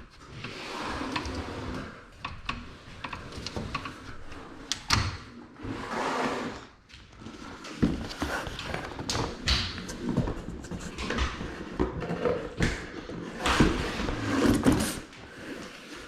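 Irregular knocks, thunks and rustling of close-up handling, a few sharper clicks among them.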